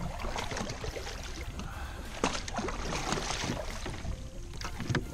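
Water splashing and sloshing as a plastic bucket is dipped over the side of a kayak and filled from the river, with a few short knocks and splashes.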